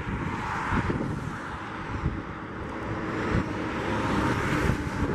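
Jet engines of a Boeing 737 on landing approach, a broad rushing sound that grows louder toward the end, with gusty wind buffeting the microphone.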